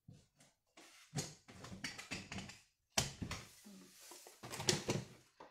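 Items being handled and packed into a cardboard box: irregular rustling and knocks, the sharpest knock about three seconds in.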